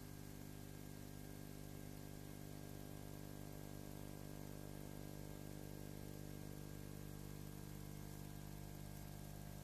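Steady electrical hum with a layer of hiss, unchanging throughout; no other sound.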